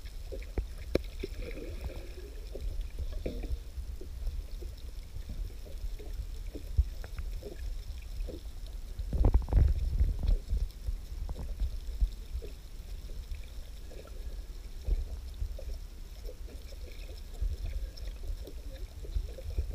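Muffled underwater rumble and sloshing of water moving around a submerged camera, with scattered small clicks and knocks and a louder surge about nine seconds in.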